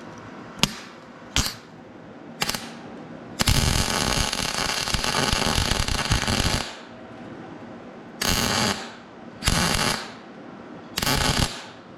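Arc welding a 3/8 nut onto a broken exhaust bolt stub in an aluminum LS cylinder head, so the bolt can be turned out. Three brief strikes come first, then one run of about three seconds, then three shorter runs of under a second each.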